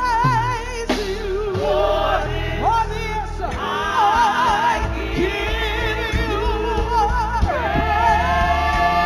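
Live gospel music: a singer holding long notes with wide vibrato over a bass-heavy band accompaniment.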